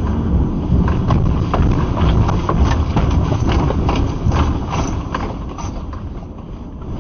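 Earthquake shaking: a heavy low rumble with rapid, irregular clattering and knocking of rattling objects, dying down over the last couple of seconds.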